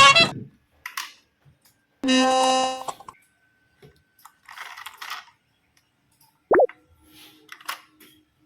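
A string of short, separate toy sounds: a sharp clack at the start, then a held buzzy horn-like tone lasting under a second, a brief hiss, and a quick zip-like chirp.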